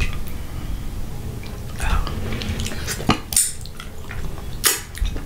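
Utensils and hands stirring and scraping in a glass bowl of sauce, with several sharp clinks, the loudest in the second half.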